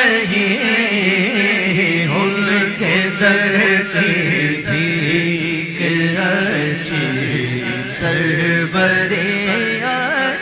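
Male voice chanting an Urdu naat in long, drawn-out melodic phrases, the notes held and wavering in pitch.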